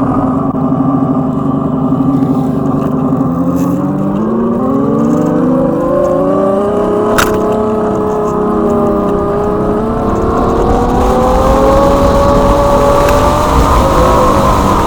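A synthetic engine sound from the EUC World app's acoustic vehicle alerting system, played through a Kingsong 16X electric unicycle's built-in speakers. It holds one pitch, then rises smoothly in pitch like an engine revving up as the wheel speeds up, and climbs a little more near the end. There is one sharp click about halfway through.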